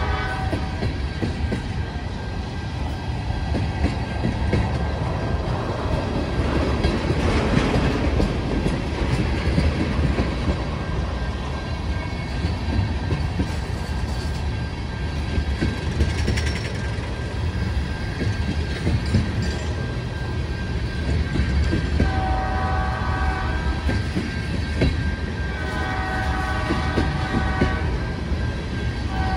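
Freight train of tank cars rolling past at close range: a continuous heavy rumble with wheels clattering over the rail joints. A ringing tone with several pitches at once sounds briefly at the start and comes back twice in the last third.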